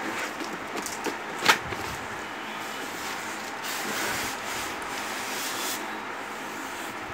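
Cardboard carton being slid up off a polystyrene-foam-packed sewing machine, the box scraping and rubbing against the foam, with one sharp knock about a second and a half in.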